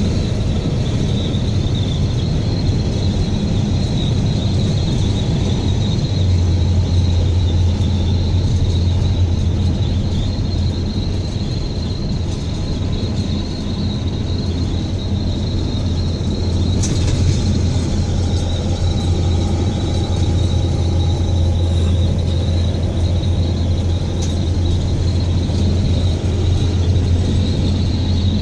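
Cab interior of a 2021 Peterbilt 337 truck cruising down the road: its PACCAR diesel engine runs steadily with tyre and road noise. A low steady drone grows stronger about six seconds in.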